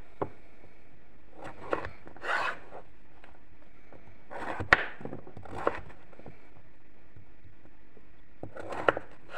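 Kitchen knife cutting a zucchini into large chunks on a wooden cutting board: about half a dozen separate knocks and short scrapes at irregular intervals, the sharpest knock about four and a half seconds in.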